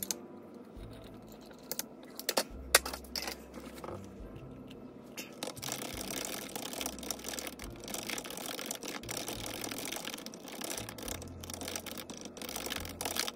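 Typing on a computer keyboard. A few separate clicks and one louder knock come in the first few seconds, then from about five seconds in a steady run of rapid key clicks.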